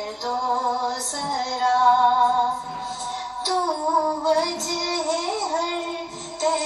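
A woman singing a hamd, a devotional Urdu hymn in praise of God, in long held, wavering notes, heard from a TV's speaker.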